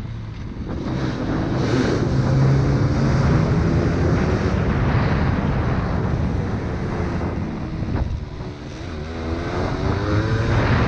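Suzuki MX125 dirt bike engine running under way, the throttle opening and easing off. About eight seconds in it drops back briefly, then rises in pitch again as the bike accelerates, with wind on the microphone.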